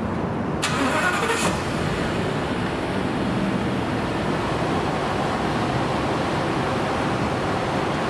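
Ford ambulance engine starting, with a short burst of noise about a second in, then running steadily.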